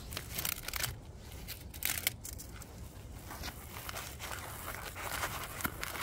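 Foil-faced foam pipe insulation crinkling and rustling under gloved hands as it is pressed around an air conditioner's refrigerant pipe, in irregular scratchy bursts.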